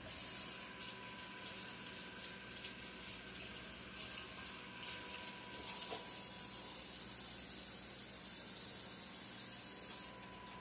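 Kitchen tap running into a sink, a steady hiss of water that is turned on at the start and shut off about ten seconds in.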